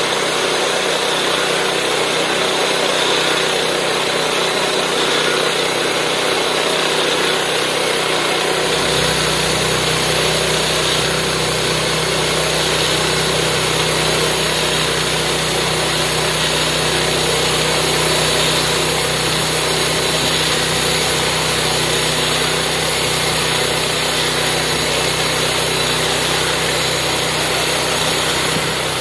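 Homemade bandsaw sawmill running: its small gas engine drives the band blade steadily through a log. A deeper low hum joins about nine seconds in.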